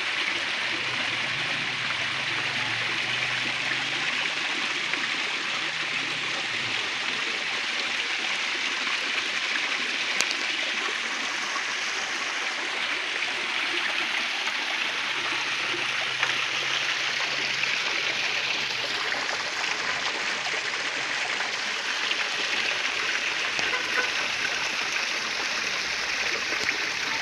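Water from a rock waterfall splashing and trickling steadily off stone ledges into a pool.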